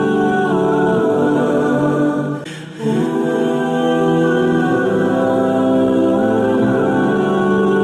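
Background music: slow, sustained vocal or choir-like pad with long held chords, briefly dipping about two and a half seconds in.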